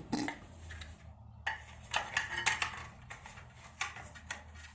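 Scattered light clicks and clatter at irregular intervals, like small hard objects being handled, over a faint low hum.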